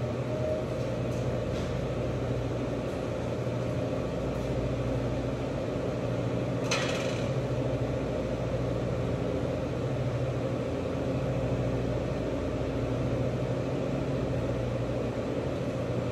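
Steady low mechanical hum of background equipment in a commercial kitchen, with one short hiss about seven seconds in.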